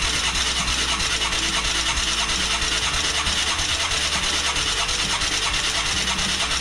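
The 1988 Yamaha Moto 4 YFM225's single-cylinder engine cranking over steadily with a rapid, even pulsing churn during a compression test. The spark plug is out and a gauge is in its place, building to about 75 PSI, which is improved but still low.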